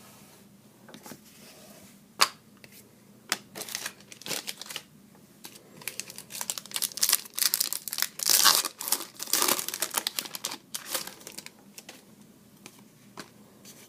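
Foil wrapper of an Artifacts hockey card pack crinkling and tearing as it is opened and handled, with cards rustling and clicking. The sound comes in irregular bursts, busiest past the middle.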